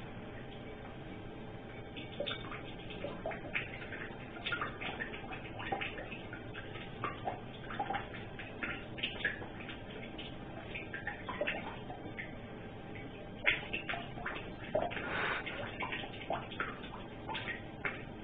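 Water dripping and splashing in a bathtub under the tap: a steady faint hiss with irregular small plinks and splashes, busiest about two-thirds of the way through.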